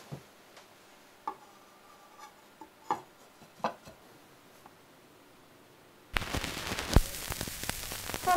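A few light clicks and taps as a shellac record is handled on an EMT 930st turntable and the tonearm is set down. About six seconds in, the stylus meets the groove and the record's surface noise starts: a steady hiss with crackle and one louder click.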